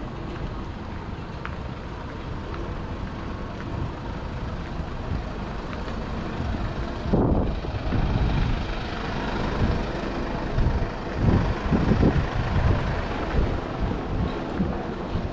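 City street traffic noise: a steady rumble that grows louder and more uneven about seven seconds in, with surges as vehicles pass.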